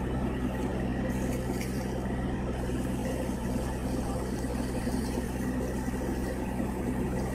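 Steady low drone of a squid-jigging boat's engine and deck machinery running, with a little faint clatter about a second in.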